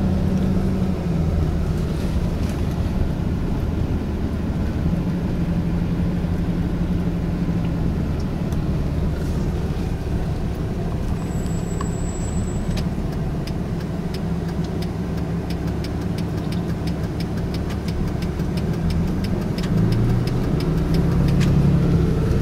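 Car engine and road noise heard from inside the cabin as the car drives slowly, the engine note shifting now and then. A faint rapid ticking joins in the second half.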